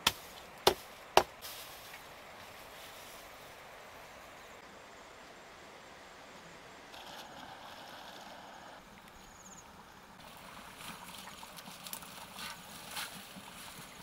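Three sharp chops of a large knife cutting through a bundle of lemongrass in about the first second. A soft swish of water follows about seven seconds in as the stalks are rinsed, then a few light clicks and knocks near the end.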